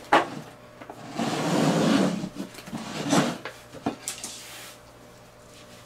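Cup-ramen containers being slid and set down on a tabletop while being shuffled: a rubbing scrape of about a second, then a couple of sharp knocks as cups are put down.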